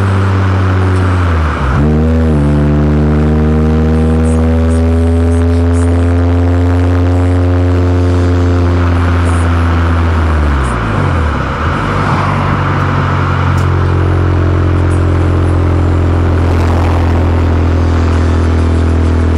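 Honda CR-Z Mugen RZ's 1.5-litre four-cylinder and Mugen exhaust running under way at a steady cruise. The exhaust note dips sharply about a second and a half in, and drops again around ten seconds in at a gear change before settling on a lower steady note.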